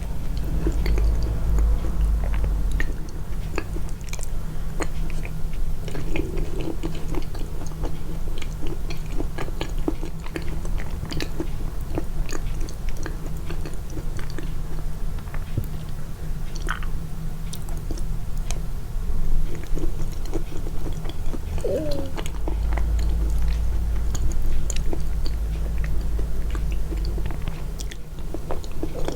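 Close-miked chewing, with many small wet mouth clicks over a heavy low rumble, boosted in the edit for eating-sound ASMR.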